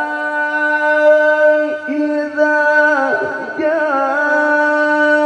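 A male Quran reciter holds one long melismatic note in tilawah into a handheld microphone. The pitch stays steady, with short ornamental turns about two seconds in and again around three seconds in. The reciter has said his voice is unwell and hoarse, so the note is forced.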